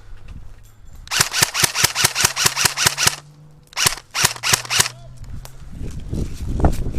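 Airsoft gun firing two rapid automatic bursts, a longer one of about a dozen shots and then a shorter one of about half a dozen. Near the end a rising rustling rumble follows.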